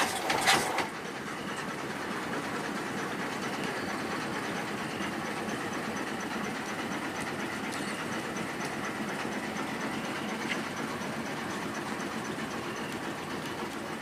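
Boat engine running steadily, an even mechanical drone. A few short knocks come at the very start.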